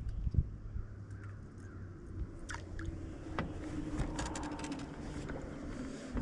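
Handling noise as a freshly caught bass is unhooked on a boat deck: two thumps at the start, then scattered light clicks and rattles, over steady wind.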